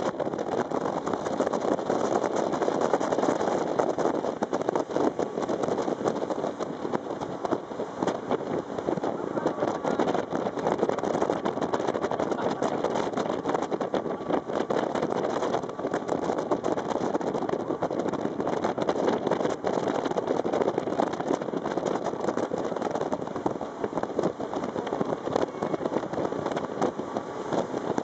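A boat's engine running steadily, mixed with an even rush of wind and water, heard from on board while the boat is under way.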